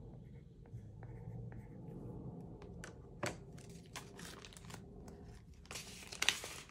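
Paper banknotes and cash envelopes rustling and crinkling as cash is handled in a budget binder, with light taps and clicks and a louder crinkle about six seconds in.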